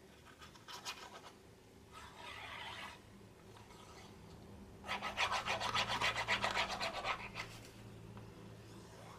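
Metal needle tip of a fine-tip glue applicator bottle scratching and tapping on paper as glue is dotted on, in short scratchy strokes. About five seconds in comes a louder run of quick ticks lasting about two and a half seconds.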